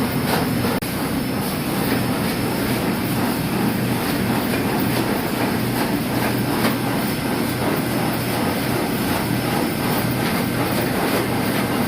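Electric mill grinding dried red chili peppers into powder, running steadily with a constant low hum under an even grinding noise.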